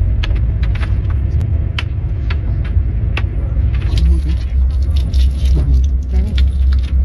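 Steady low rumble inside an Al Boraq high-speed train carriage, broken by scattered sharp clicks and rattles.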